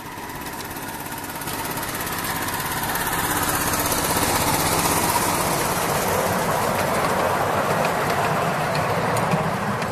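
A 7¼-inch gauge miniature-railway locomotive built as a Class 47 diesel passing with its passenger cars, its small engine running, growing louder as it approaches, loudest about halfway through, then slowly fading.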